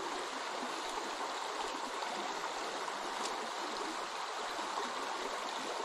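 Shallow, rocky creek running over stones: a steady rush of flowing water.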